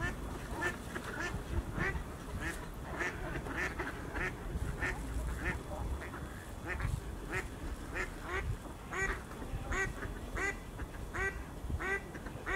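Mallard ducks quacking: a steady series of short quacks, about two a second.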